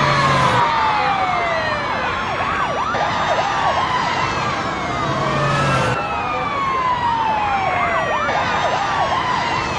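Concert audience screaming and cheering. Over the crowd, a siren-like falling sweep from the sound system repeats about every three seconds.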